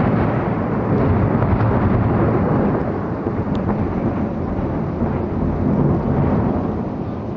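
Long rolling rumble of thunder with rain, easing a little about halfway through.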